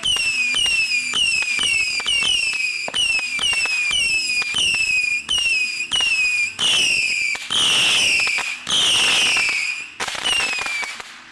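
Whistling fireworks going off in a rapid series, about two whistles a second, each a short shriek falling slightly in pitch, with sharp crackling pops between. Near the end come two longer, louder whistles, then the display dies away.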